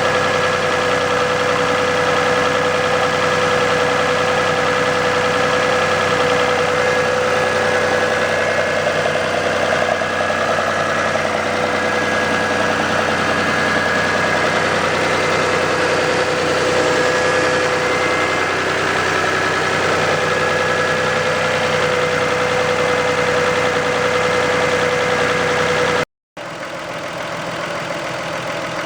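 1990 Toyota Camry's 2.5-litre 2VZ-FE V6 engine idling steadily. Near the end the sound cuts out for a moment and comes back quieter.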